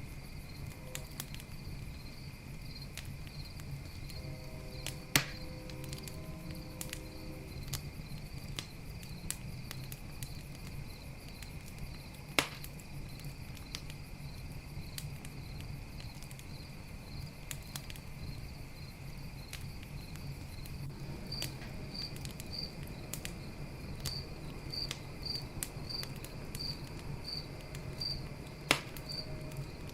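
A wood campfire crackling, with three sharp, loud pops, over the steady pulsing chirps of crickets.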